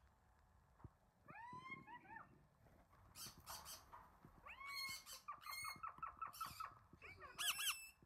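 Parrot calls: a few rising-and-falling whistled chirps about a second in, a rapid run of short chirps around the middle, and a louder squawk near the end, with scratchy noise between them.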